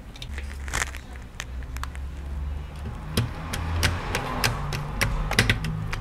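Sharp clicks and light knocks of hands handling a graphics card's plastic fan shroud and fitting a small screw during reassembly, coming thicker in the second half, over a low rumble.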